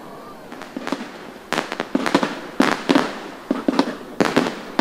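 Fireworks going off: a run of sharp bangs and crackles, sparse at first and coming thick and fast in clusters from about a second and a half in.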